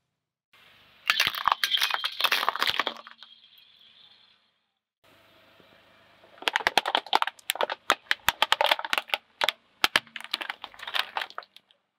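Red plastic toy car cracking and snapping under a car tyre: a dense run of sharp cracks over about five seconds as the plastic body breaks apart. A shorter burst of crunching and crackling comes a few seconds earlier.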